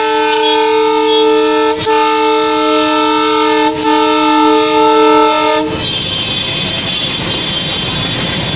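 WDS6-AD diesel shunting locomotive's horn sounding long and steady, with two very short breaks, and cutting off about six seconds in. After that comes the locomotive's engine and wheels rolling past.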